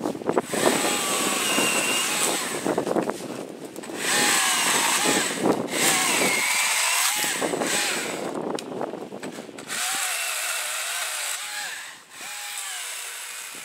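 Husqvarna 120i battery-powered chainsaw cutting branches in several bursts, with short lulls between them. Its electric motor whine dips in pitch as the chain bites into the wood and picks up again as it eases off.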